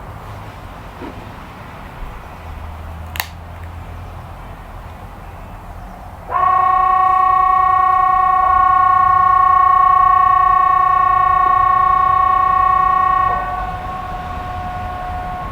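Outdoor civil-defence warning siren (Swedish "Hesa Fredrik") sounding a loud steady tone of fixed pitch for about seven seconds, without wailing. It then drops to a fainter, slightly lower tone that keeps sounding. A short sharp click comes about three seconds in, before the siren starts.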